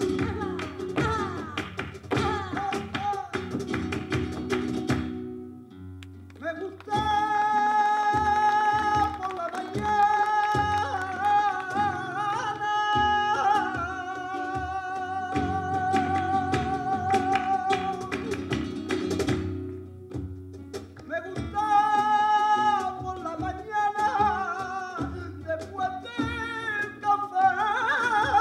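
Live flamenco guajira: flamenco guitar with hand percussion and palmas. A singer comes in about a quarter of the way through with long, wavering held sung lines, pauses, and comes in again later.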